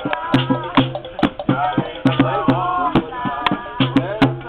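Drums playing a rhythm of sharp strikes and low booming tones, with voices singing over them.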